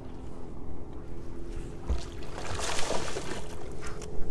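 Steady hum of a bow-mounted electric trolling motor, with a hooked largemouth bass splashing at the surface from about two seconds in.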